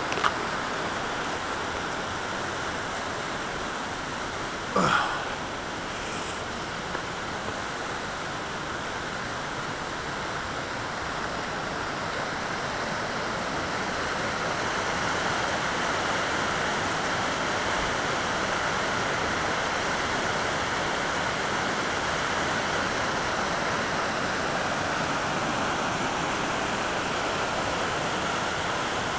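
Fast-flowing creek water rushing down a smooth natural rock waterslide chute, a steady rush that grows a little louder midway through. A brief bump sounds about five seconds in.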